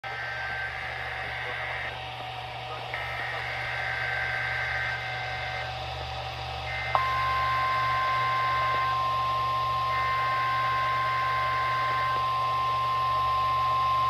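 NOAA Weather Radio alert signals from weather radio speakers: repeated bursts of the SAME digital header, a two-tone data screech lasting about two seconds with one-second gaps, and about seven seconds in the steady 1050 Hz warning alarm tone starts abruptly and holds while the last header bursts play over it.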